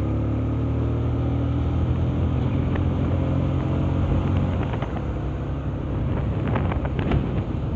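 Motorcycle engine running on the road, heard from a helmet camera with wind rumbling on the microphone; the engine note is steady and then eases off about halfway through. A few sharp clicks near the end.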